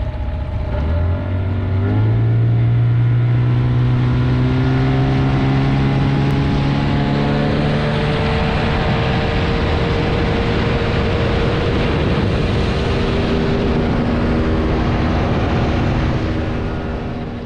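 Outboard motor on an inflatable boat revving up in the first two seconds, then running at speed with water rushing along the hull; it throttles back near the end.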